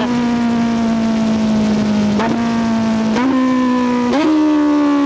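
Kawasaki Z900SE's 948cc inline-four engine and exhaust under way; the engine note sags slowly, then jumps up in pitch three times in quick succession, as with downshifts while the bike slows.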